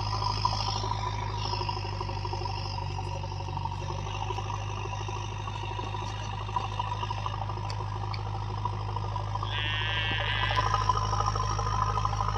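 Diesel engine of a JCB 3DX backhoe loader running steadily with a low hum. Near the end a brief high warbling sound comes in for about a second.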